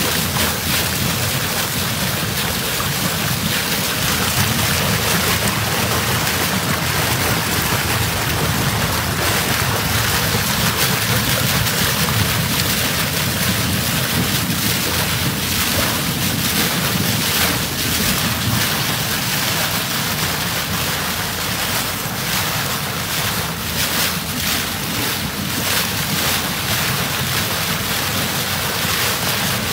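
Water rushing and splashing in a moving boat's wake, a steady loud hiss with wind buffeting the microphone.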